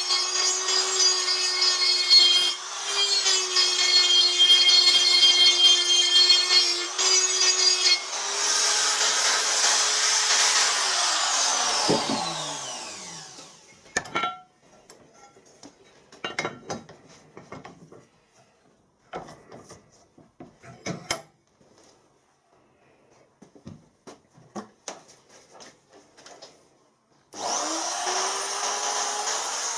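Die grinder with a carbide burr cutting into a cast aluminium motorcycle crankcase, a steady whine with rasping cutting noise. About eight seconds in it runs free at a higher pitch, then spins down with a falling whine. Scattered clicks and knocks of the part being handled follow, and near the end the grinder starts again and rises to speed.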